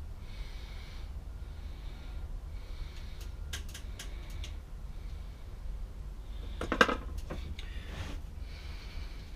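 A man breathing audibly through his nose, in soft breaths that come and go, while a razor blade scrapes and clicks a few times on a plaster of Paris mold. About seven seconds in comes one short, louder breath sound, over a steady low hum.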